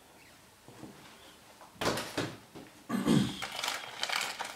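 Packaging rustling and crinkling as a parcel of coins is handled and opened: a sharp rustle about two seconds in, then steadier crackly rustling from about three seconds on, with a short low grunt-like sound at about three seconds.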